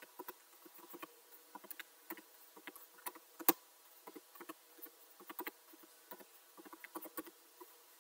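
Typing on a computer keyboard: quick, irregular key clicks, several a second, with one louder keystroke about three and a half seconds in.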